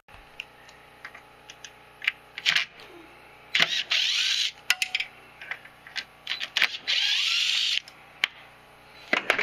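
Yellow DeWalt cordless power tool running in two bursts of about a second each, backing out the mounting bolts of a snowmobile's chassis control unit. Short clicks and knocks of tools and metal parts come between the bursts.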